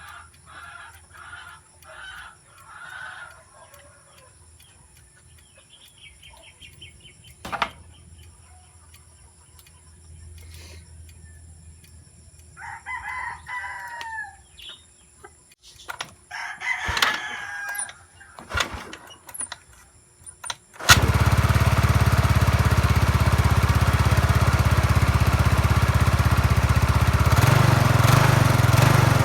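Chickens clucking and a rooster crowing, then about two-thirds of the way through a Yamaha Mio Sporty scooter's engine starts suddenly and runs steadily. It picks up speed a little near the end.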